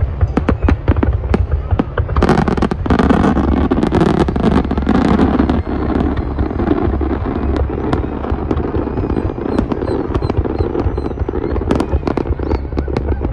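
Fireworks going off in quick succession: many sharp bangs and cracks, thickening into a dense stretch of crackling from about two to six seconds in, over a steady low rumble.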